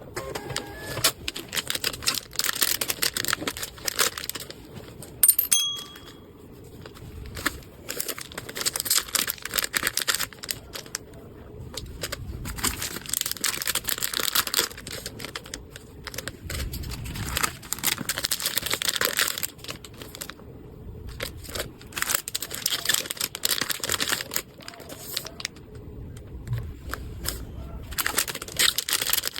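Packaging being crinkled, rustled and torn open by hand, in irregular stretches of crackling with short pauses. About five seconds in there is a brief sharp clink.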